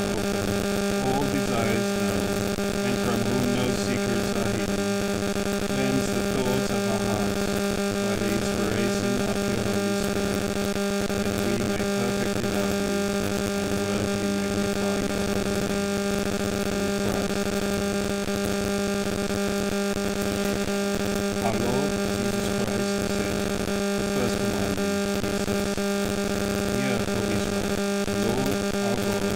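Loud, steady mains hum and buzz, with a man's voice faintly audible beneath it.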